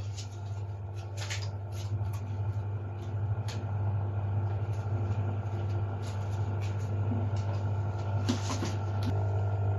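Wall-mounted exhaust fan running with a steady low hum. Several short clicks and rustles come from gloved hands handling multimeter test leads, a little after the start, around the middle and near the end.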